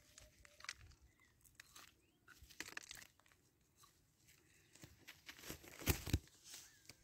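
Crackling and rustling of dry brush, with handling knocks from the phone as it is moved, and a few louder thumps about six seconds in. Faint bird chirps sound in the distance.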